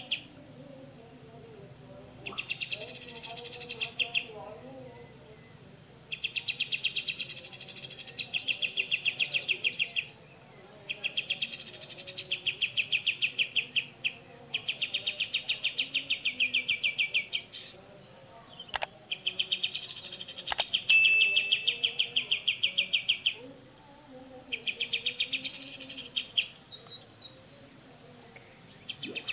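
Grey-cheeked bulbul (cucak jenggot) singing its rapid 'besetan' chatter: about seven bursts of fast, evenly repeated high notes, each a few seconds long with short pauses between. A steady high-pitched insect-like tone runs underneath the whole time.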